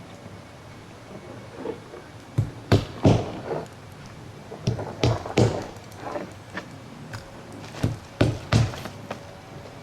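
Irregular knocks and thuds, several in quick clusters, from roofers working on a roof deck, fastening base felt paper underlayment with nails.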